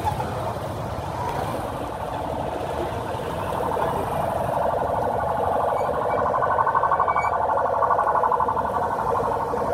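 Busy street traffic with a motorcycle engine buzzing close by, growing louder about four seconds in and easing off near the end.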